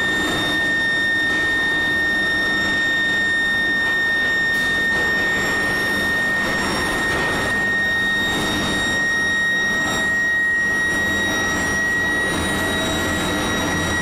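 Steel-mill billet roller table and heating line running: a constant high-pitched whine with overtones over broad machinery noise and a low hum. The whine edges slightly higher in pitch toward the end.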